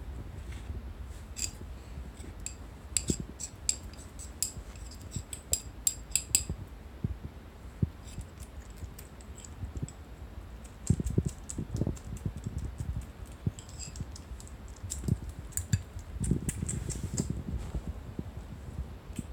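Scattered light clicks and clinks of a metal spoon knocking against a small ceramic bowl of kitten weaning food, in quick runs in the first few seconds and again near the end. A few soft thumps and rustles of kittens being handled come in between.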